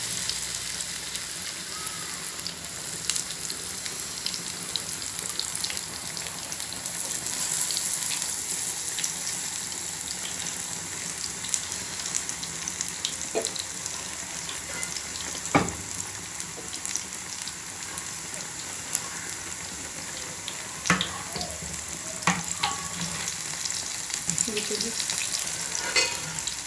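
Besan-battered roti pieces deep-frying in hot oil: a steady sizzle with fine crackling. A few sharp taps come in the second half.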